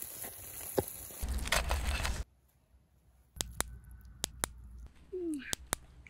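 Wood fire crackling and hissing under mackerel grilling in a wire basket. About two seconds in it cuts off abruptly to quiet, broken by a few sharp clicks and taps.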